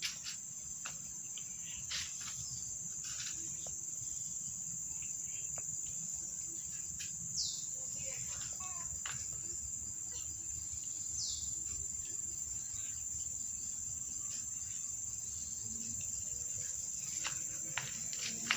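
Insects trilling in a steady high-pitched drone, with two short falling chirps about seven and eleven seconds in.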